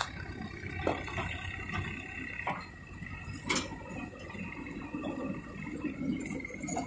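Faint drone of distant tractor engines working a field, with a few light clicks.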